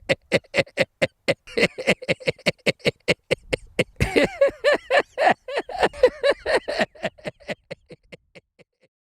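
A man's dubbed Joker laugh: a rapid run of pitched "ha" pulses, about four or five a second, swelling into a denser, louder peal about four seconds in and trailing off near the end.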